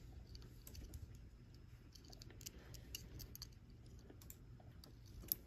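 Faint, irregular light clicks and taps of a microSD card being handled into a small breakout board's spring slot, with one sharper click near the end as the card seats.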